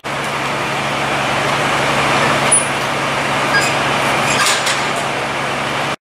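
Fire truck's diesel engine running steadily: a low hum under a broad rushing noise, with a few faint ticks about two and a half seconds in, at about three and a half seconds, and near the end.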